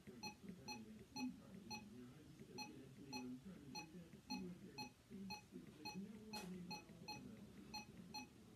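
RadioShack 12-262 weather alert radio giving a short, high key beep with each button press as its keys are pressed over and over, about two to three beeps a second, unevenly spaced.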